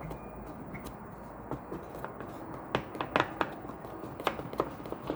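Hands working small parts of a snowmobile headlight assembly: scattered light clicks and taps, with a cluster of sharper clicks about three seconds in and a few more near the end.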